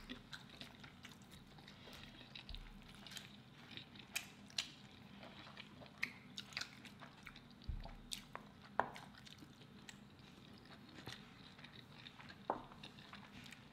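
Quiet chewing and mouth sounds of people eating a burrito and a rice-and-bean bowl, with scattered small clicks and smacks.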